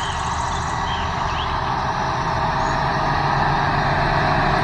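Large John Deere farm tractors' diesel engines running steadily under load as they pull seed drills across a field, the hum growing slightly louder as one drives close by.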